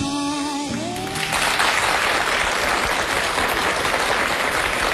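Studio audience applauding, taking over as soft music ends about a second in.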